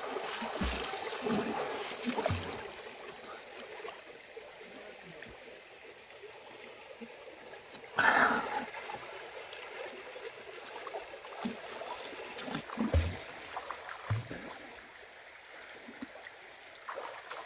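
Water splashing and trickling, with one louder splash about eight seconds in.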